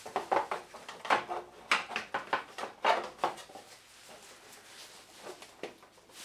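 Plastic knocks and clicks as the vacuum cleaner's plastic top housing is handled and fitted back onto its base: a quick run of knocks over the first three seconds or so, then a couple of faint clicks.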